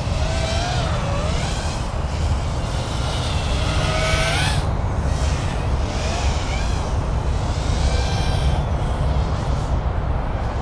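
Motors of a 5-inch FPV racing quadcopter with Foxeer Datura 2206 2700kv motors, whining in flight, their pitch rising and falling with the throttle over a heavy low rumble.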